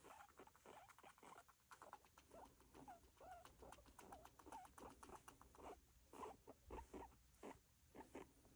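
Guinea pig vocalising: a rapid run of short calls, some bending up and down in pitch, with soft clicks between them.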